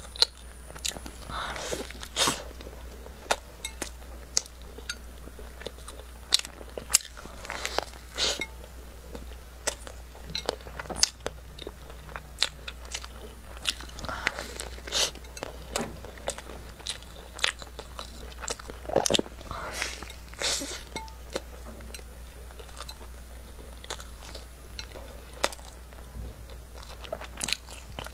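Close-miked biting and chewing of a chocolate-coated bun (zang zang bao): irregular sharp crunches and mouth sounds, with a few louder bites.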